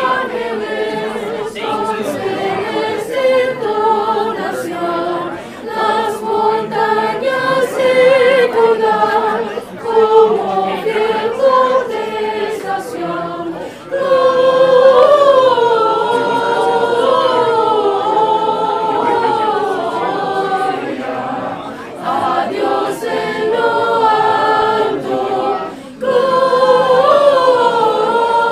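A choir of several voices singing together, unaccompanied, with held, wavering notes.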